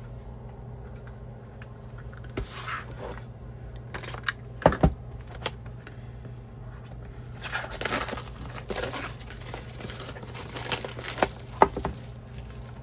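Album packaging being handled and unwrapped: a few sharp knocks and clicks, then a stretch of crinkling and tearing in the second half.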